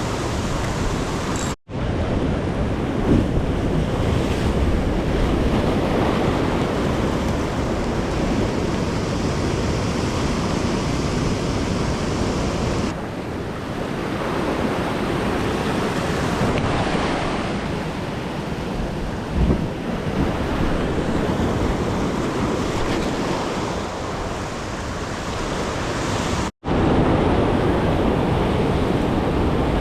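Ocean surf washing and breaking over shoreline rocks, with wind buffeting the microphone. The sound cuts out completely for a moment twice, once near the start and once near the end.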